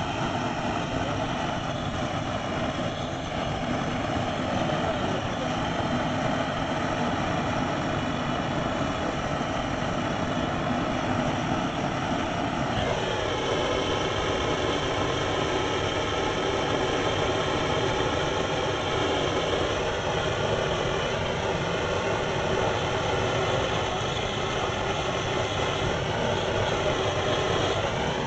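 Handheld gas-cartridge blowtorch burning steadily while heating a copper pipe coupling for soft soldering with tin solder. About halfway through, its tone drops and changes abruptly.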